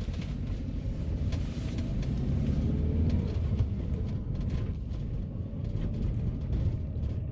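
Lada Granta's engine and manual gearbox heard from inside the closed cabin while driving in first gear: a steady low rumble with a faint whine that rises about halfway through.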